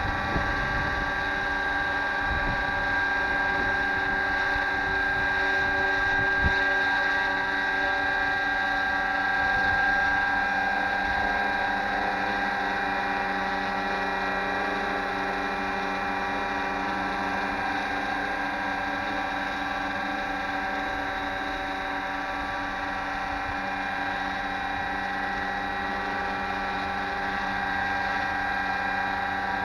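Radio-controlled scale AH-6 Little Bird helicopter hovering steadily, its motor and rotors giving a constant whine of several pitches. Wind rumbles on the microphone underneath.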